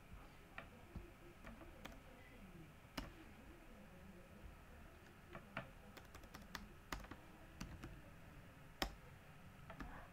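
Faint, irregular computer keystrokes and mouse clicks, with one louder click near the end.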